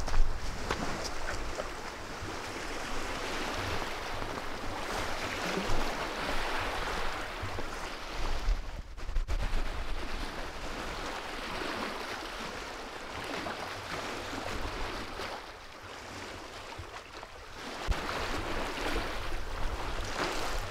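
Small wind-driven waves lapping on open water, with wind rumbling on the microphone.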